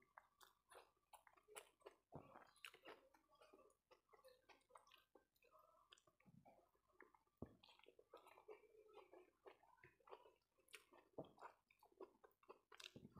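Quiet, close chewing of a mouthful of rice and fish curry eaten by hand, with irregular small mouth clicks and lip smacks. Near the end come the soft sounds of fingers mixing rice on the plate.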